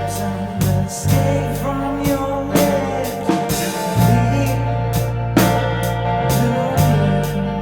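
A band playing a rock song: drum kit keeping a steady beat over held bass notes and guitar chords.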